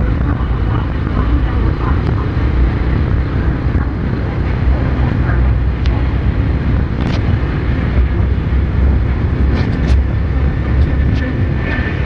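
Steady rain at night over a deep, constant low rumble, with scattered sharp ticks of drops striking something hard.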